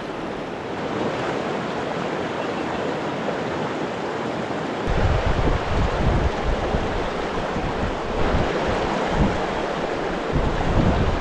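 Steady rush of the Pecos River's flowing water. From about five seconds in, wind buffets the microphone in gusts.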